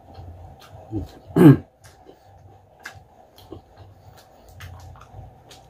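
Mouth sounds of a man chewing crispy pork chicharon: scattered small crunching clicks. About a second and a half in comes one short, loud throaty vocal sound that falls in pitch.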